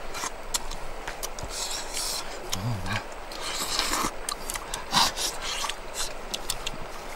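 Eating noises from people eating cooked fish by hand off the bones: lip smacks, sucking, and several short bursts of air through the lips, with scattered clicks. A short low hummed 'mm' comes about two and a half seconds in.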